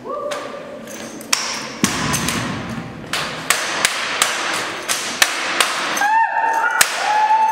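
Drill rifles being handled in a tandem rifle-drill routine: about a dozen sharp cracks and slaps as the rifles are caught, struck by the hands and set down on the floor. About six seconds in, a long high-pitched call begins and is held to the end.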